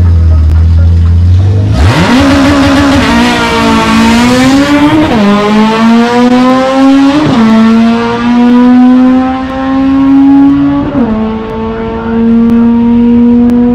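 Drag-racing Honda Civic hatchback launching from the start line: a steady low engine note, then about two seconds in a sudden loud launch with the revs climbing hard. The engine note drops and climbs again at three upshifts as the car pulls away down the strip.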